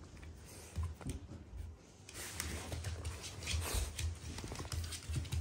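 Close-up sounds of a Shiba Inu nuzzling and mouthing a person's hand: soft rustling and small wet mouth clicks, getting louder about two seconds in, with low bumps as the dog presses against the microphone.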